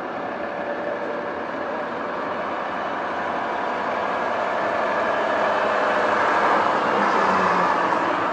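Heavy tank-transporter trucks passing in convoy: steady engine and road noise that gradually gets louder toward the end as one draws near.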